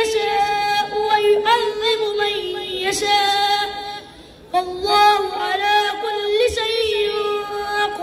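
A child's voice chanting Qur'an recitation (tilawat) over a microphone, in long drawn-out melodic notes with ornamented turns. It breaks off briefly for breath about four seconds in, then resumes.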